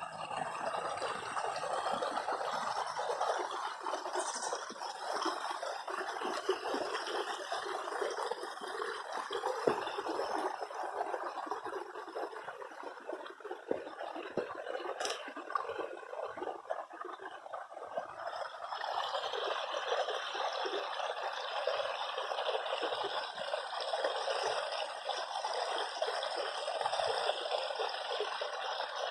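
Water of a small stream flowing steadily over stones, trickling and gurgling; about two-thirds of the way through it grows brighter.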